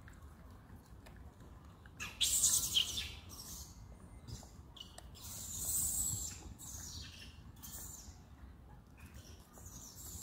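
Birds chirping in a few short, high-pitched bursts, the loudest about two seconds in and another run a few seconds later.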